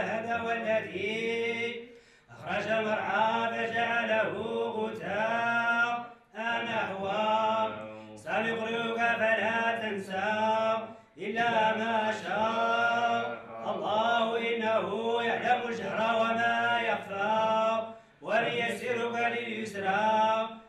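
Male voices chanting in long melodic phrases of several seconds each, with brief pauses between them, in the manner of a religious chant.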